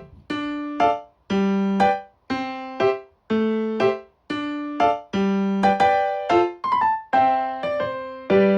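Background music: a light, bouncy piano tune played as separate plucky notes over a steady beat.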